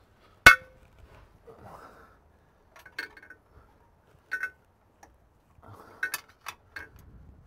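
Metal hand tools clinking against metal under the car: one sharp, loud clank about half a second in, then several lighter clinks later on, each ringing briefly.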